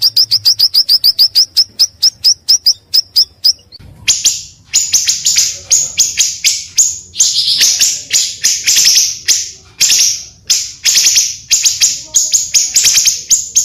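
Bird-lure recording of the bird called pancawarna in Indonesian: a fast series of high, piercing notes, about eight a second, slows and stops a few seconds in. After a short pause come loud, harsh chattering notes in quick strings.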